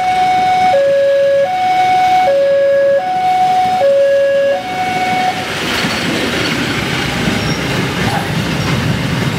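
Level-crossing warning alarm sounding an alternating low-high electronic two-tone, each note held about three-quarters of a second, stopping about five seconds in. Then the rumble of passenger coaches rolling past on the rails.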